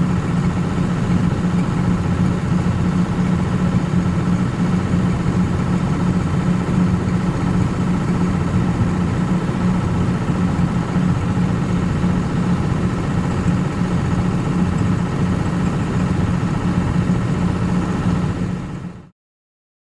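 A vehicle engine running steadily at constant speed: an even low hum with a faint steady whine above it, which cuts off abruptly about a second before the end.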